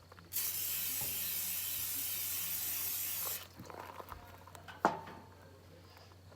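Aerosol spray can hissing steadily for about three seconds, then cutting off, followed by a few light knocks and one sharp clank with a short ring.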